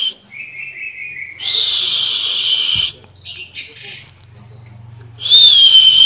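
Caged songbirds calling: long, clear whistled notes, each held for more than a second, with a shorter lower trill and quick varied chirps between them.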